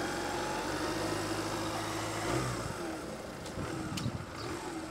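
Motorcycle engine running steadily as it rides along the street, becoming weaker and less even about halfway through.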